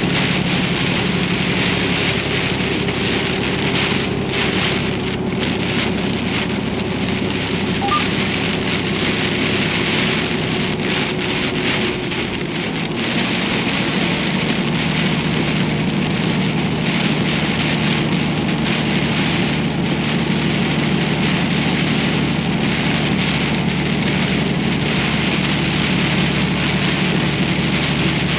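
Heavy rain pelting a truck's cab and windshield while driving, a dense steady hiss over the even drone of the truck's engine. The engine's note steps slightly lower about halfway through.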